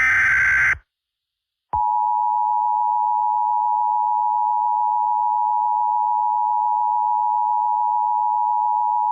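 Emergency Alert System tones. It opens with the tail of an EAS/SAME digital header burst, a harsh electronic warble lasting under a second. After a short gap comes the steady two-tone attention signal, two close pitches sounding together, which announces a tornado warning.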